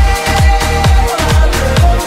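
Electronic dance music with a deep kick drum beating steadily under a held synth note.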